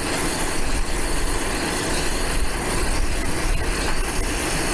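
Gas preheating torch burning in a thermite-weld mould on a rail joint: a loud, steady roaring rush. It is heating the mould around the rail gap before the thermite charge is poured.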